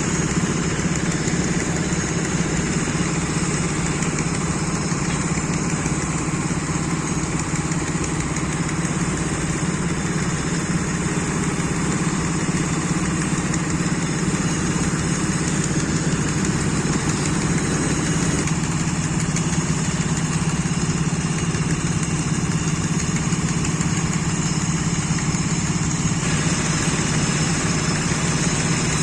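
Diesel engine idling steadily, with a slight change in tone about two-thirds of the way through.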